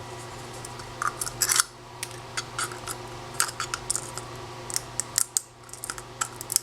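Irregular small clicks, snaps and scraping of 3D-printed plastic as support material is picked and broken out of the printed part with a small hand tool, over a steady low hum.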